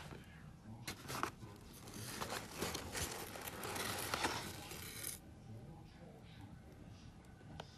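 Crumpled newspaper packing and a cloth snake bag rustling and crinkling as a hand digs into a foam-lined shipping box and lifts the bag out, with a few sharp clicks early on. The rustling is busiest between about two and five seconds, then drops away.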